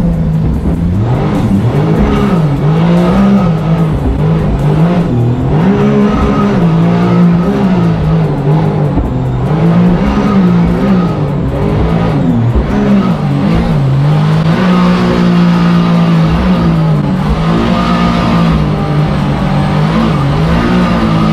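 Supercharged Sea-Doo RXP 260 three-cylinder engine driving a mini jet boat's two-stage jet pump, running hard, its pitch rising and falling every second or two as the throttle is worked.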